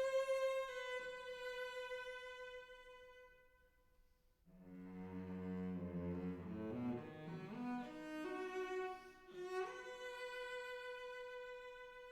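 Background music of slow bowed strings: a long held note fades away about four seconds in, then new sustained chords enter with a lower line beneath, and a note slides upward near the end.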